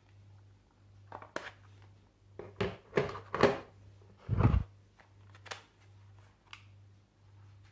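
Hard plastic screwdriver-bit cases being handled in an aluminium tool case: a string of clicks and knocks, the loudest a dull thump about four and a half seconds in as a case is lifted and set down.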